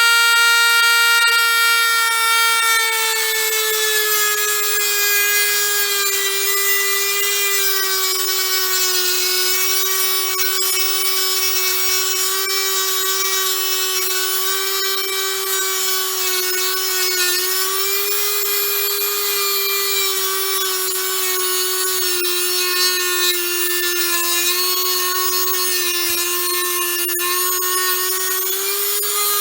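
Dremel rotary tool with an abrasive cutoff wheel cutting through a steel rod: a steady high whine with a gritty grinding hiss. The pitch drops a little a few seconds in as the wheel loads up in the cut, and rises again near the end.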